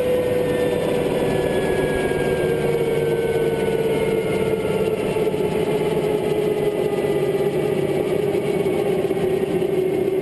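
Mosquito XET ultralight helicopter's turbine engine running with a steady whine that slowly falls in pitch.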